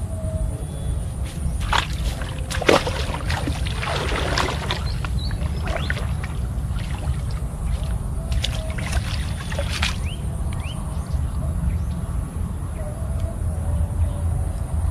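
Water sloshing and splashing in irregular bursts as a person wades through a flooded rice paddy, over a steady low rumble.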